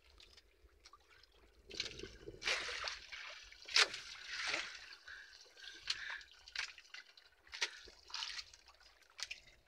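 Wet nylon gill net and a live mackerel being handled in the bottom of a small boat: irregular rustles, drips and small splashes of water, with a sharp tap about four seconds in.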